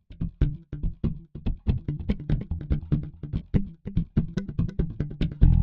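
Background music: a quick, even run of short plucked or percussive notes, about four to five a second, until a louder sustained band part comes in just before the end.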